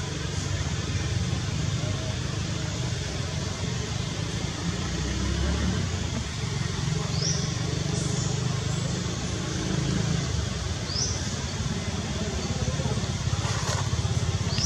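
Steady outdoor background rumble with a constant hiss, broken by three short, high, rising chirps a few seconds apart.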